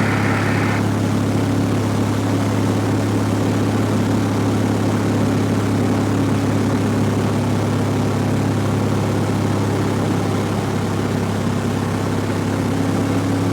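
Cessna 172F's Continental six-cylinder engine and propeller droning steadily at reduced power, the aircraft slowed to 70 mph with 30° of flap in slow flight.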